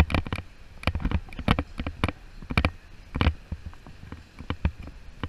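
Footsteps and knocks of the carried camera jostling with each stride while walking on a paved sidewalk. There is a sharp thump about every half second, with lighter clicks between.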